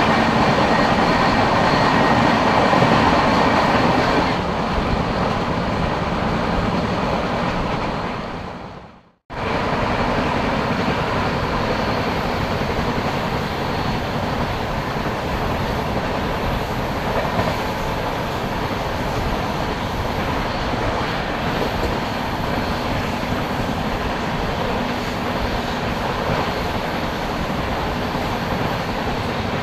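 Fast passenger train running, heard from an open coach door: a loud rushing of wind, wheels and rails, at its loudest for the first four seconds while another train's coaches pass close alongside on the next track. Near nine seconds the sound fades out briefly and comes back as the train's steady running noise.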